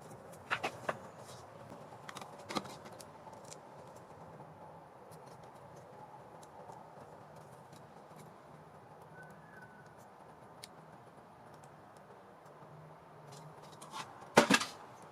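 Small objects and tools being handled: a few light clicks and rattles near the start and a louder clatter near the end, over a faint steady background hum.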